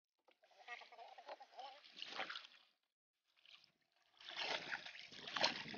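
Wooden paddle strokes splashing and sloshing in sea water alongside a small outrigger canoe, cutting out completely twice and louder from about four seconds in.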